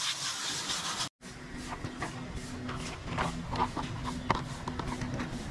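Water spraying from a hose with a steady hiss, cut off abruptly about a second in; then scattered light clicks and knocks over a faint steady hum.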